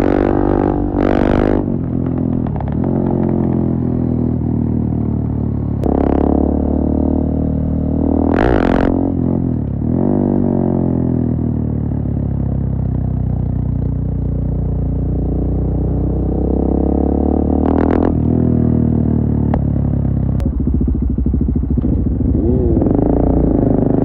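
2017 KTM 690 Duke's single-cylinder engine running through an Akrapovič exhaust with a GPR decat pipe while riding, its pitch falling and rising with the throttle. Three short loud bursts come about six seconds in, near nine seconds, and near eighteen seconds.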